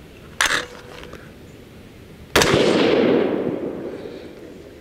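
A single shot from a muzzle-braked AR-15 in 6mm ARC firing a Hornady 105 gr boat-tail hollow point factory round, about two and a half seconds in, with its echo dying away over about two seconds. A brief sharp sound comes about half a second in.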